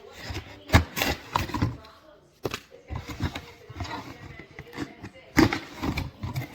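Irregular metallic clanks and knocks from a stainless steel kettle and its lid being handled, loudest about a second in and again near the end.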